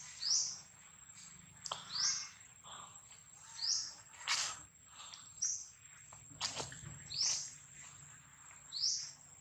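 Short, high chirping calls, each a quick arching note, repeated about every one to two seconds, with a few sharp clicks between them.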